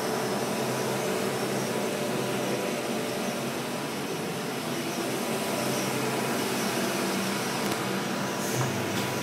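Steady ventilation noise from the fab's air handling: an even hiss with a faint low hum. There is a brief bump near the end.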